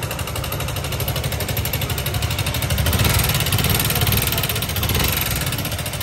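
Suzuki Gixxer SF Fi single-cylinder engine running in neutral with a fast, even ticking clatter from the top end, louder for a couple of seconds around the middle. The mechanic traces the noise to oil starvation: a worn camshaft, metal powder in the head and a seized rocker bearing.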